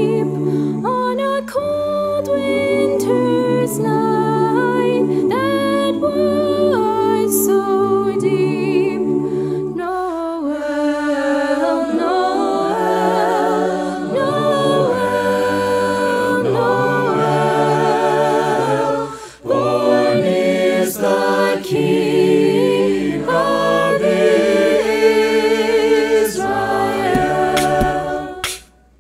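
Mixed-voice a cappella group singing a Christmas carol in close multi-part harmony, with no clear words. The voices break off briefly about two-thirds through, then fall away near the end as sharp percussive clicks begin.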